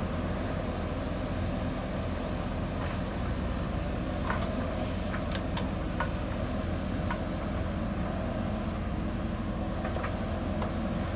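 JCB backhoe loader's diesel engine running steadily under work, with a few light knocks about four to seven seconds in and again near the end.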